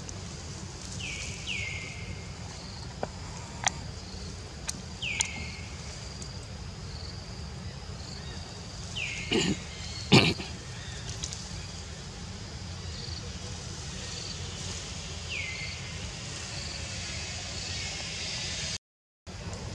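Forest outdoor sound with short high-pitched calls that slide quickly downward, heard about six times and spaced irregularly, plus a few sharp clicks. Two louder thumps come about nine and ten seconds in.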